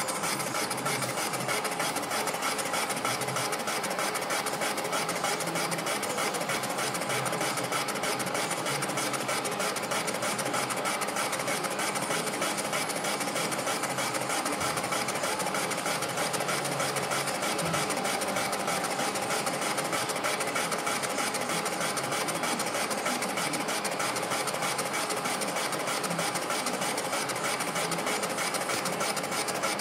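Klopp FWUE8 milling machine running, its Vertex boring head turning the boring bar inside the cylinder bore of a Piaggio scooter engine case as it bores it out. A steady, even machine hum, unchanged throughout.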